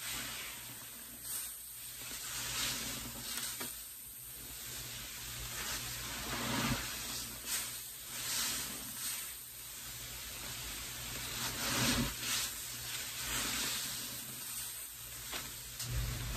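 Wet sponges squeezed in a bucket of pine-cleaner solution: a fizzing sizzle of suds that swells and eases off several times.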